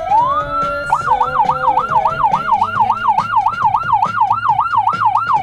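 Electronic emergency-vehicle siren sounding. A slow falling wail rises again over the first second, then switches to a fast yelp sweeping up and down about three times a second.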